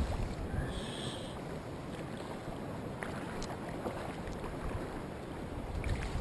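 Mountain stream water rushing steadily, with wind buffeting the microphone and a few faint clicks.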